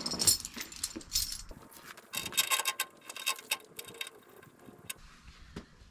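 Metal tow chain clinking and rattling in irregular bursts as it is handled and hooked to the rear of a dump truck, dying away in the last second or so.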